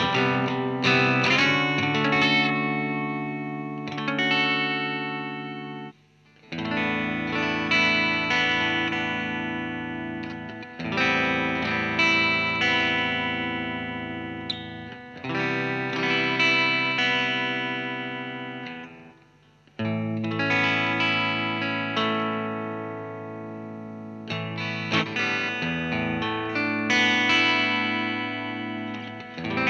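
Squier Affinity Telecaster electric guitar played through a Marshall MG30 amp: chords are struck and left to ring out and fade, a new chord every four to five seconds, with quicker strums near the end.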